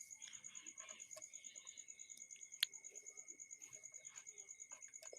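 Faint background trill of a cricket: a high, rapidly and evenly pulsing chirp, over a faint steady whine, with a single soft click about two and a half seconds in.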